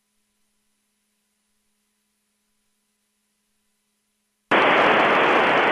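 Near silence with a faint steady hum, then about four and a half seconds in a loud, steady static hiss starts abruptly: a radio receiver's open channel with no station heard.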